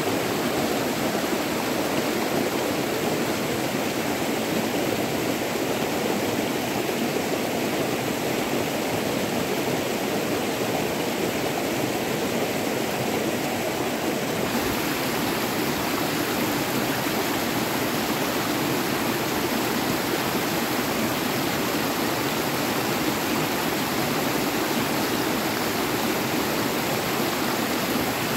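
River water rushing, a steady noise that shifts abruptly in tone about halfway through.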